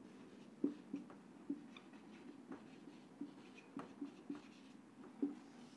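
Whiteboard marker writing on a whiteboard: a quiet run of short, irregular taps and scratches as the letters are formed.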